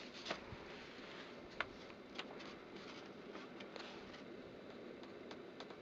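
Faint handling noise of a hand reaching into a paper envelope: a low rustle with a few light, scattered clicks.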